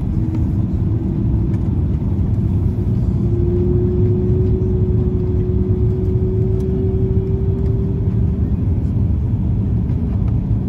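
Steady rumble of engines and airflow inside the cabin of an Airbus A330-200 on approach. A thin steady whine of the flaps extending to slow the aircraft comes in briefly at the start and again from about three seconds in, rising slightly and fading out at about eight seconds.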